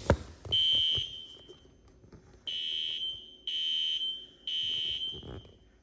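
Fire alarm horn sounding after its pull station is pulled, in the temporal-three evacuation pattern: high-pitched half-second blasts, three a second apart, then a longer pause. A sharp click comes at the very start, and one blast sounds about half a second in before the group of three.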